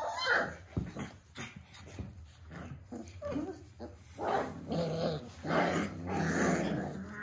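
Puppies growling at each other while play-fighting, in several rough spells from about four seconds in. Before that, light clicks and scuffs of their claws on the tile floor as they scramble about.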